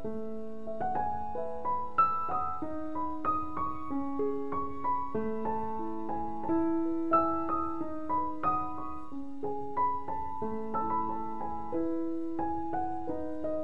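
Background piano music: struck notes a few times a second in a flowing melody over held lower notes.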